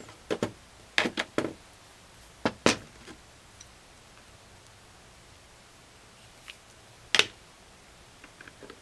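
Sharp clicks and knocks of a hand tool and small metal parts being handled against a paintball marker as its back grip screw is taken out and set down. There is a quick cluster of them in the first three seconds and one louder click about seven seconds in.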